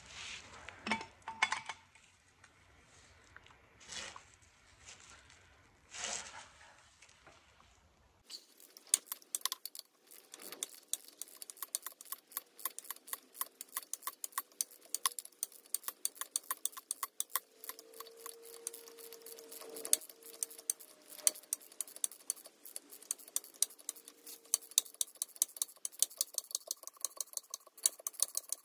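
A wrench working the flywheel bolts of a 1928 Chrysler inline-six: a few separate metal knocks in the first several seconds, then, after an abrupt change about eight seconds in, a long run of rapid light metallic clicking.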